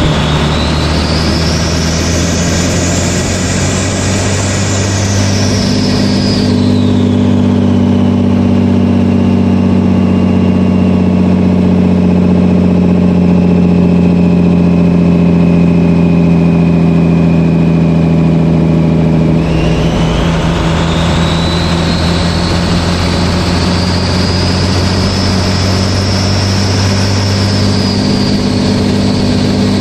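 12-valve Cummins 5.9-litre inline-six turbodiesel running with a loud, high-pitched whistle from its 62/65/14 turbocharger. The whistle climbs to a peak about four seconds in, falls away and slowly sinks, then jumps up again about two-thirds of the way through and climbs once more as the turbo spools.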